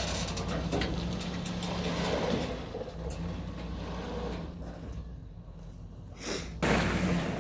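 Old GMC truck engine running steadily at idle, dipping quieter for a moment, then a sudden louder rush of noise near the end.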